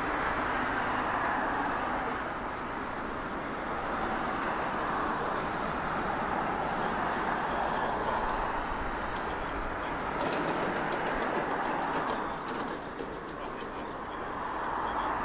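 Two Rolls-Royce Trent XWB turbofans of an Airbus A350 at takeoff thrust during the takeoff roll, a steady heavy rushing noise heard from behind, with a run of faint crackles about ten seconds in.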